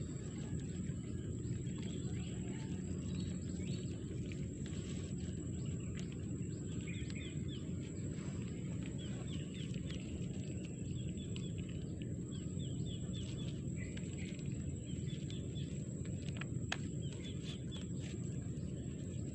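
A bird calling again and again, a short run of quick chirps every couple of seconds, over a steady low rumble. A few sharp clicks and rustles come from the plastic raffia strap being handled as a crab is tied.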